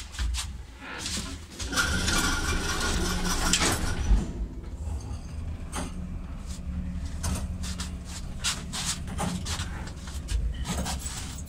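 1986 SamLZ (Samarkand-built) passenger lift car travelling in its shaft: a steady low hum with frequent clicks and rattles from the car, and one sharper knock about four seconds in.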